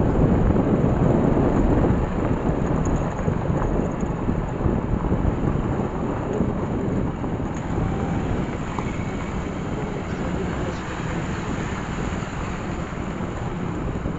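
Wind rushing and buffeting over the microphone of a camera on a moving motorbike, over a low rumble of vehicle and road noise. It is loudest for the first couple of seconds, then steadies.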